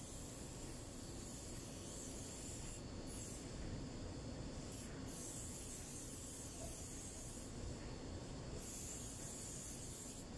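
Aerosol spray can hissing in long bursts onto a metal hydraulic fitting. There is a short break about three seconds in, another about five seconds in, and a longer one of about a second near eight seconds.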